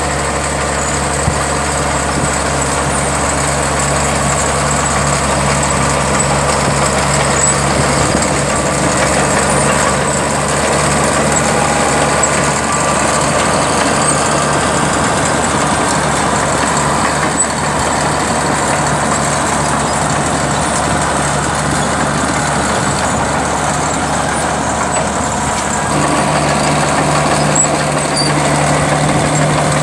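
A heavy tractor engine running steadily, its low hum getting a bit stronger near the end.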